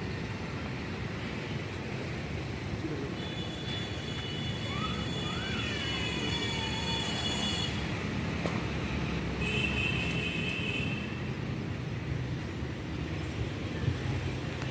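Outdoor background noise: a steady low rumble of distant traffic and wind. Through the middle it carries a few chirps and several high, held whistling tones.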